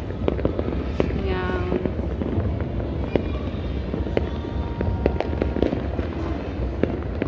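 Fireworks and firecrackers going off all around: a dense, unbroken run of sharp pops and cracks, with a few louder bangs among them.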